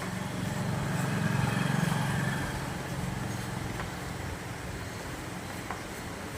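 Low engine rumble of a motor vehicle going by, swelling about a second in and then fading.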